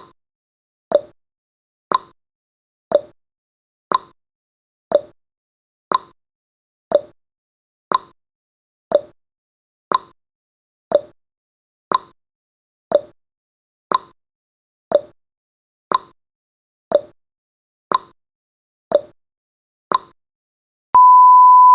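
Countdown timer's tick sound effect, one sharp tick every second, then a steady beep starts near the end as the countdown reaches zero.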